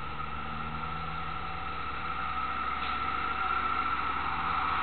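Diesel semi-truck engine running as the rig approaches with a boat on its trailer, a steady hum that slowly grows louder.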